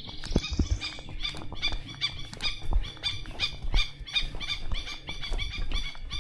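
An animal calling in a rapid, even series of high chirps, about four a second, with a few dull low thuds mixed in.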